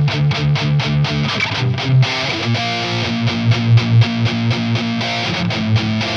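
Distorted electric guitar through FLEOR Alnico 5 humbucker pickups. It plays a run of fast picked notes, then from about two seconds in settles into longer held lower notes.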